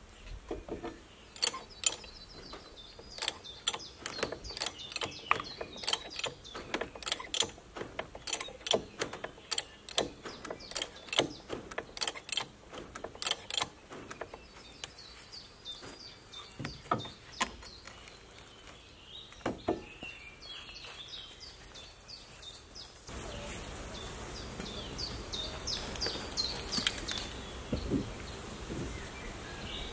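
A run of sharp, irregular knocks or clicks, a few a second, through the first half, then sparser, with birds chirping. About three quarters of the way through, a louder steady background noise sets in suddenly.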